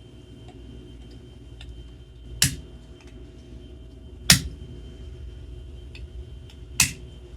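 Three sharp plastic snaps, a couple of seconds apart, as the VDO tachometer gauge's circuit board assembly is pressed and clicked into its plastic housing.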